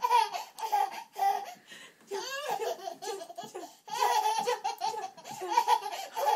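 A baby laughing in short, repeated high-pitched bursts.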